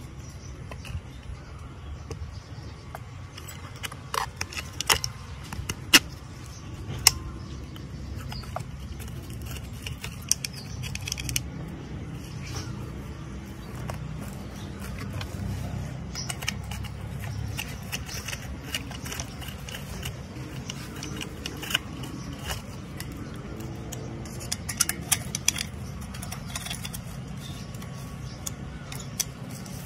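Metal parts and tools clicking, clinking and scraping against a small two-stroke brush cutter engine as it is assembled by hand. The sharp clicks come in scattered clusters over a steady low background rumble.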